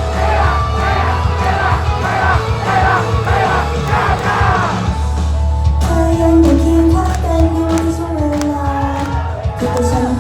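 Loud pop song intro over a sound system, with a steady heavy bass. Many voices shout along over it for the first five seconds or so, before a cleaner melody line takes over.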